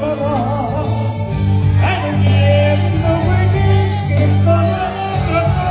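A man singing a Neapolitan neomelodic song into a microphone over a live band. His sustained notes waver with vibrato over a steady bass line.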